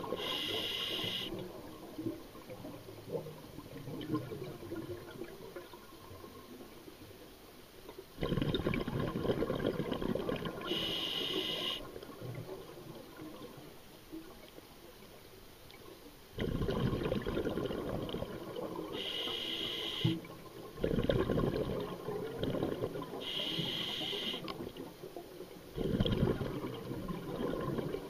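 Scuba diver breathing through a regulator underwater: several short, high hissing inhalations, each followed by a longer burst of exhaled bubbles, a few breaths in slow succession.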